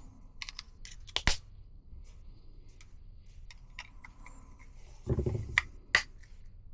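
Small sharp plastic clicks and snaps of a car smart key fob being handled during a battery change, with a brief low thud about five seconds in.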